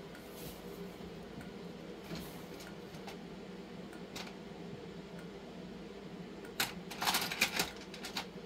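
Small hard plastic charms clicking and rattling as they are handled: a few faint ticks, then a louder flurry of clicks near the end. A steady low hum runs underneath.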